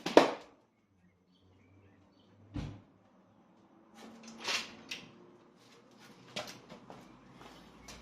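A few sharp knocks and clatters of hand tools and parts being handled and set down during work on a car's rear suspension. The loudest knock comes right at the start, then a duller thump, and a run of lighter clicks and rattles toward the end.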